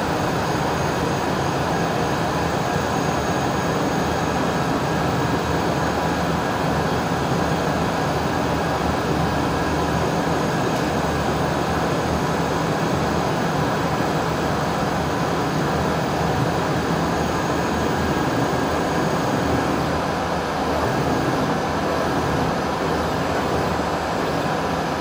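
Syil X7 CNC milling machine running with a steady, unbroken hum as its table jogs slowly along the X-axis at reduced feed rate.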